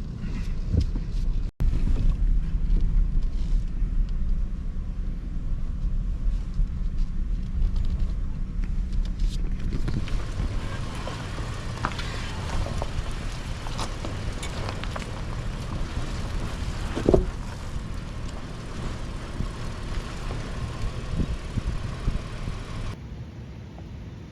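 A 2022 Nissan Frontier Pro-4X's 3.8-litre V6 running at low crawling speed with a steady low rumble, with scattered knocks from the truck working over rocks. One louder sharp sound with a short rising tone about two-thirds of the way through.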